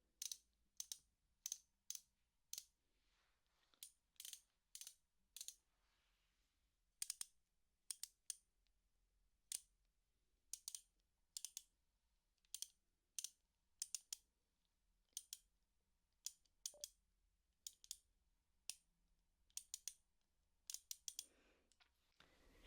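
Socket wrench ratchet clicking: single sharp clicks about one or two a second, now and then two in quick succession, as the handle is worked slowly.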